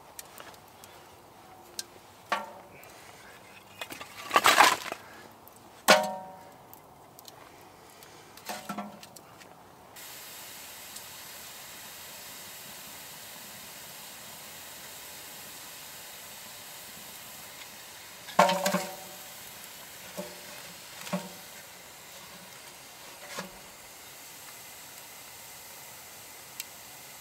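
Split logs knocking against the steel firebox of a small wood-burning stove as it is loaded, giving several ringing metallic clanks in the first ten seconds. After that the wood fire burns inside the stove with a faint steady hiss, and a few more clanks and cracks follow.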